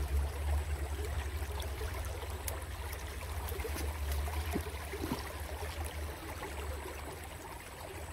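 Shallow stream trickling around rocks, with a steady low rumble underneath.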